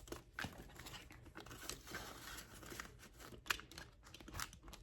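Faint rustling of paper banknotes and cash envelopes being handled, with several short, sharper crinkles.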